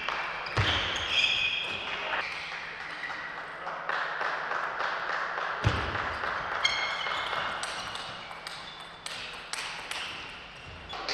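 Table tennis ball struck back and forth: sharp clicks of the plastic ball off the bats and the table, over two rallies with a short break between them. Short high-pitched squeaks come in among the hits.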